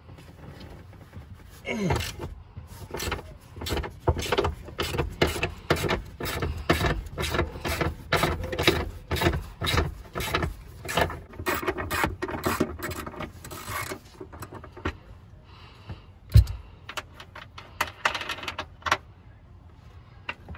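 Half-inch ratchet clicking in quick runs of strokes as it turns the 18 mm bolts holding the rear seat, with a single low thump later on.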